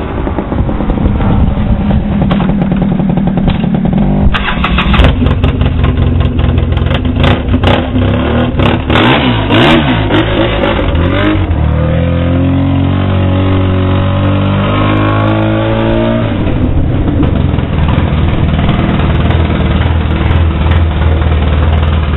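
Polaris Sportsman 800 twin-cylinder ATV engine running through straight pipes with no muffler. It is revved hard several times with sharp cracks from the exhaust, then drops back in steps to a steady, loud low-speed run.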